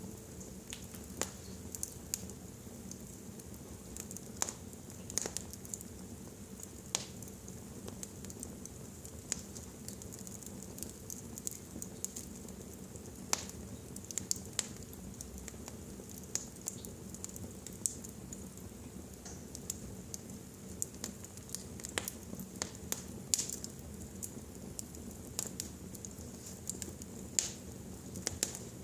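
Wood fire in a fireplace crackling: irregular sharp pops and snaps, a few louder than the rest, over a steady low rumble and hiss of the flames.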